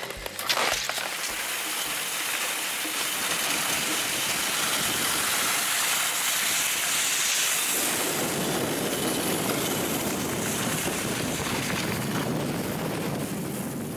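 Skis and a loaded sled's runners sliding over packed snow: a steady hissing scrape that grows fuller and deeper about eight seconds in.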